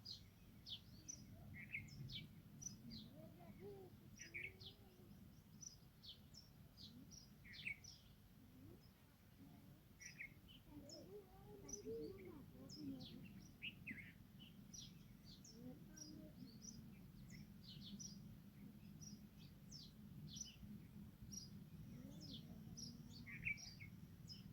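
Faint chirping of small birds: many short, high chirps scattered irregularly over a low steady background.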